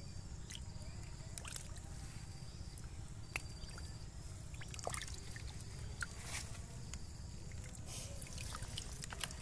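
Hands sloshing and squelching through shallow muddy water while feeling for fish, with scattered small splashes and drips.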